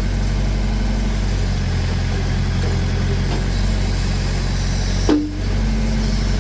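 Massey Ferguson backhoe engine running steadily, with a short sharp knock about five seconds in.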